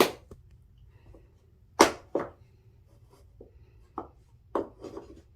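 Chunky wooden puzzle pieces knocking against a wooden puzzle board: two sharp knocks about two seconds in, then a few softer taps near the end.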